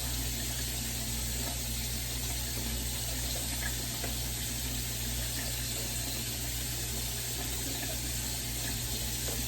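Steady hiss with a low hum beneath it, unchanging throughout, with no distinct events.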